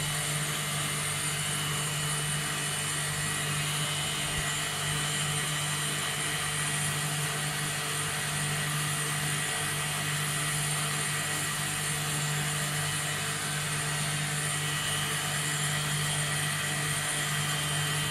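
Steady hum and whine of auxiliary machinery in an engine room, such as pumps and ventilation; the MTU main diesels are not yet running. The level stays even throughout.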